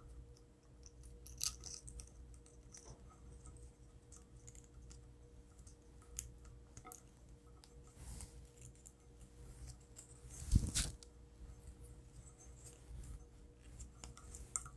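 Faint handling sounds of lamp cord wires being fed through a brass lamp socket cap: scattered small clicks and rustles, with one louder bump about ten seconds in. A faint steady hum runs underneath.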